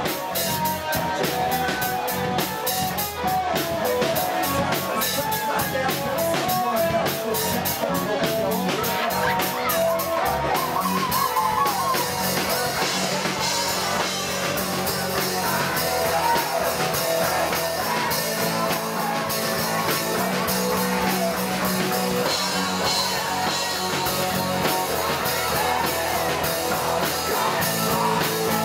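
Live rock band playing loud and steady: electric guitars, bass guitar and drum kit, with busy cymbal strikes that are densest in the first several seconds.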